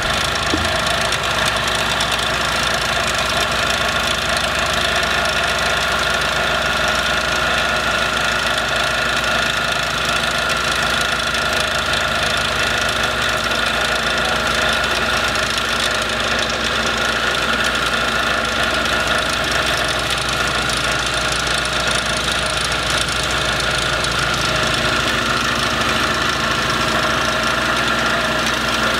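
Vibratory plow's engine running steadily, with several held steady tones and no change in level, while the plow pulls irrigation pipe and wire underground.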